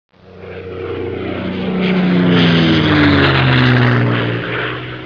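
Airplane fly-by sound effect: an engine tone swells, peaks about halfway, and falls steadily in pitch as it passes, then fades.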